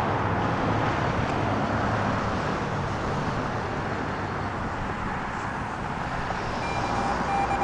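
Steady road traffic noise, a wash of passing vehicles with no clear pitch. Near the end a faint, broken high beeping tone begins.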